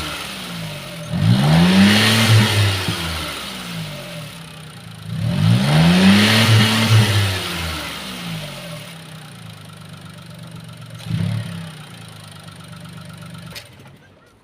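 Honda Life JB7's 660 cc three-cylinder engine revved twice with the car standing still, each time climbing to a brief held peak and then falling back to idle. It then idles, with a single knock about eleven seconds in, and the sound drops away just before the end.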